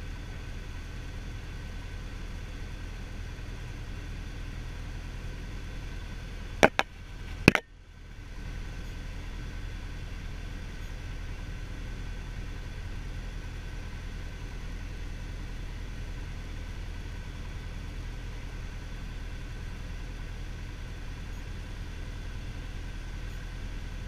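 Single-engine light aircraft's piston engine and propeller droning steadily inside the cabin in flight. About seven seconds in there are two sharp clicks, and the sound drops away briefly before coming back.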